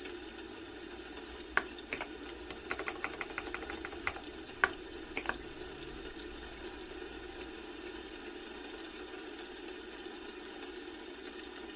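Typing on a computer keyboard: a short burst of about a dozen key clicks over a steady low hum. It includes a quick run of clicks and a couple of louder strokes, then only the hum for the second half.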